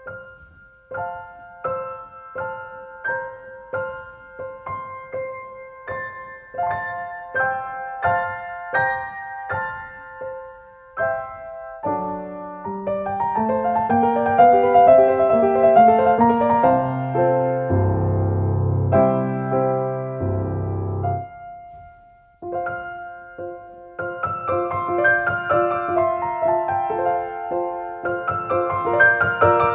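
Solo piano music. It opens with evenly spaced single notes, grows into fuller, louder chords with deep bass notes about halfway through, pauses briefly, then picks up again.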